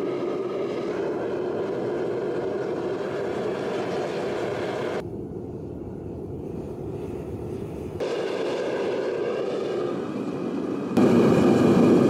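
Propane burner of a foundry melting furnace firing with a steady rushing noise. The level drops about five seconds in, comes back about three seconds later, and jumps louder near the end.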